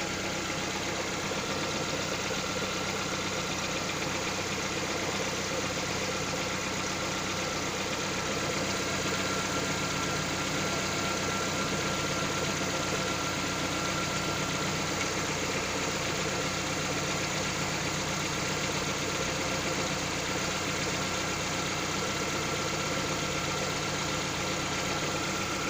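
Lada XRAY engine idling cold, running steadily with a knock in it whose cause the owner does not know.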